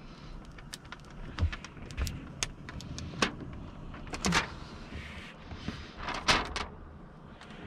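Handheld steamer running with a steady hum and hiss, broken by scattered sharp clicks and crackles as old window tint film is worked off the rear glass.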